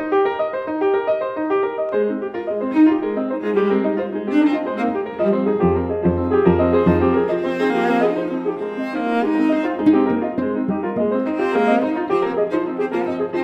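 Instrumental music: piano with bowed strings, playing a quick run of notes, with deep low notes entering about six seconds in.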